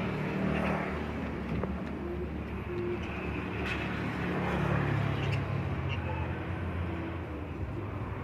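Steady low rumble of road traffic, with a few faint short bird chirps scattered over it.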